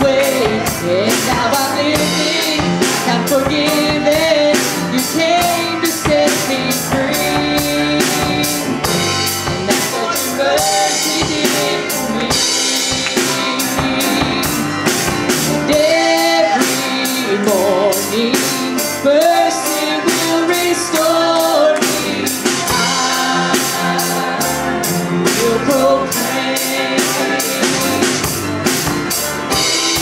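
A live band playing a gospel worship song: grand piano, electric bass and a drum kit keeping a steady beat with cymbals, and a singing voice with vibrato over it.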